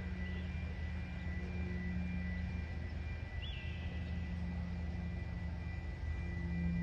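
Steady low drone of a distant engine, growing a little louder near the end.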